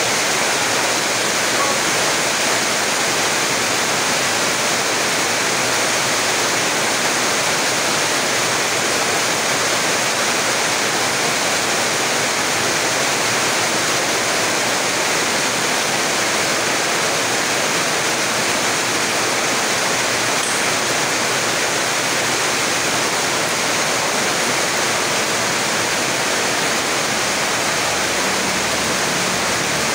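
Heavy rain falling steadily: a dense, even hiss that neither starts nor stops.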